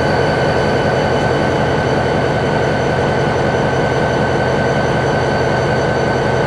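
Freight train at close range: the tail of a covered-hopper grain train rolling away along the track, with a diesel locomotive standing close by. A steady high whine sits over the rumble.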